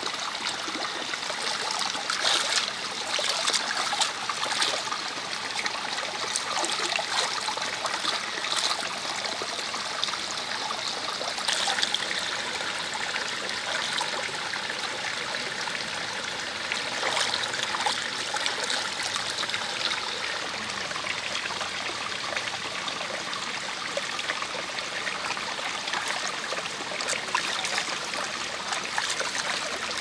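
Water trickling steadily into a small rocky pool, with occasional splashes and drips as hands scoop and pour water.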